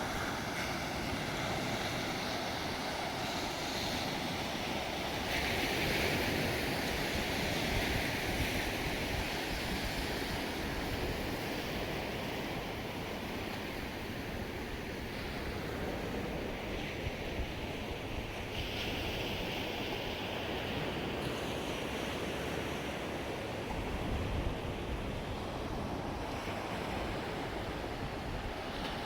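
Waves washing in, a steady rush of surf, with wind buffeting the microphone.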